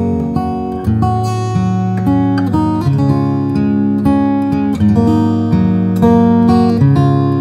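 Hsienmo Spring grand auditorium cutaway acoustic guitar, steel strings fingerpicked: a melody of single plucked notes over ringing bass notes, with a new note about every half second.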